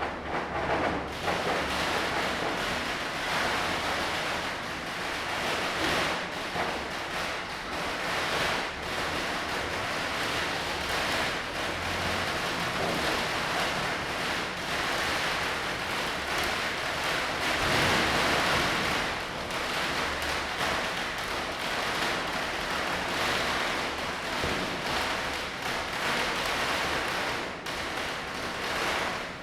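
Diwali firecrackers bursting in a dense, continuous crackle that sounds almost like rain. A few louder bangs stand out, the strongest about eighteen seconds in.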